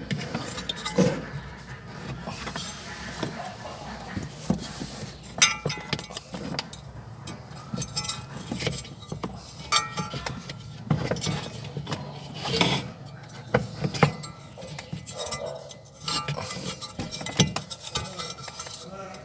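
Irregular metallic clinks and knocks of hand tools and metal parts being handled while a washing machine's pulley mount and drive belt are put back together.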